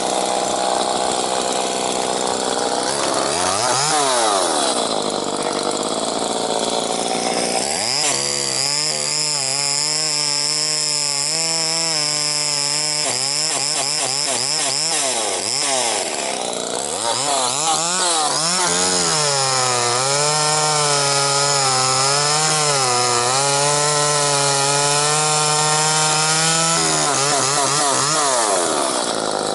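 Two-stroke chainsaw running at high revs while cutting wood. Its pitch sags and recovers as the chain loads in the cut, and the throttle drops off sharply and comes back up several times.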